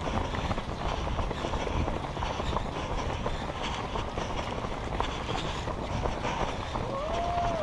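Runners' footsteps, a steady patter of footfalls mixed with rustle and wind, picked up by a head-mounted GoPro while running in a race pack. A short whistle-like tone bends up and down near the end.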